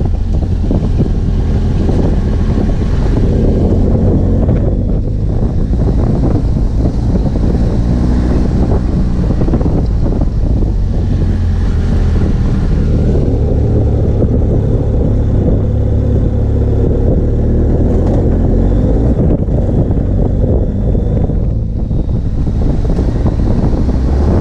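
BMW F 800 GS Adventure's parallel-twin engine running while the motorcycle is ridden along a dirt road, its note rising and falling with the throttle, with wind noise on the microphone.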